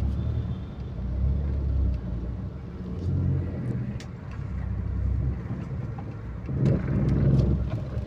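Engine and road noise of a vehicle driving in city traffic, heard from on board: a steady low rumble that swells and eases several times.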